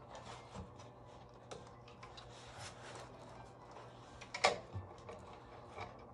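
Light clicks and paper rustling as a metal binding wire is handled and fitted through the punched holes of a notebook's pages and covers, with one sharper click about four and a half seconds in. A faint steady low hum runs underneath.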